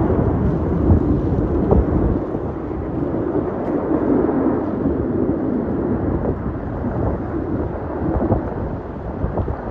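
Formation of military aircraft flying past at a distance: a steady, deep engine rumble that eases off slowly.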